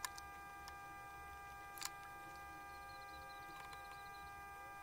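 Faint steady electrical whine and hum from the repair bench's equipment, with a few light clicks as tools are handled, the clearest about two seconds in.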